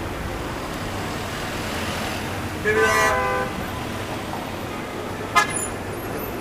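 Street traffic noise with a car horn honking once, just under a second long, about three seconds in. A brief sharp sound follows near the end.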